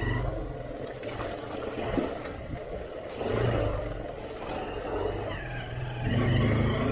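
Motorcycle engine running at low revs on a rough off-road track, with scattered knocks and rattles; it gets louder near the end.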